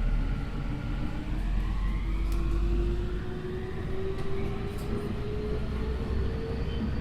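Tokyu 5050 series train's Hitachi IGBT inverter and traction motors whining, rising steadily in pitch as the train accelerates. Under it is the low rumble of the wheels on the rails, heard from inside the car at the car end.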